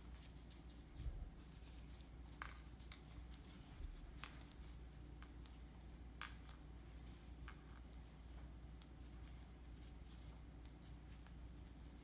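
Faint soft ticks and rustles of gloved hands picking thin radish slices off a cutting board and rolling them, a few scattered clicks every second or two over a low steady hum.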